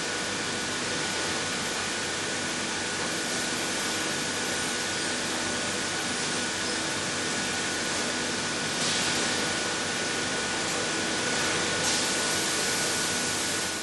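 Pneumatic valve grinder running steadily: an even hiss with a thin steady whine over a faint hum. The hiss turns a little brighter about nine seconds in and again near the end.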